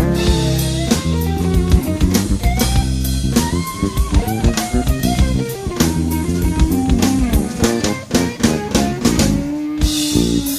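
Instrumental jazz-fusion jam: electric bass playing melodic lines with slides over a busy drum kit, ending on a long held note with cymbal wash.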